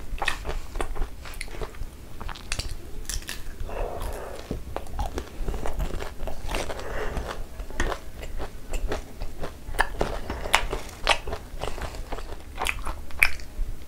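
Close-miked eating sounds: a person biting and chewing Indian sweets, with many sharp wet mouth clicks and smacks at irregular intervals.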